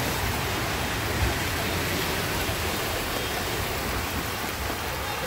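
Steady rushing noise of a heavy downpour over a flooded street, rain and running flood water together.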